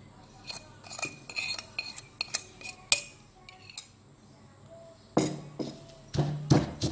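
Light clinks and scrapes of a spoon and china plate as salt and sugar are tipped into a stone mortar. About five seconds in, louder thuds as a stone pestle starts grinding them into the chilli sambal.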